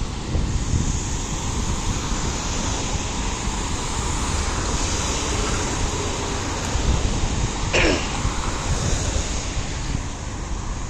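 Wind buffeting the microphone over a steady low rumble of street traffic and the approaching CSX intermodal freight train. About eight seconds in there is one brief, sharp, falling chirp.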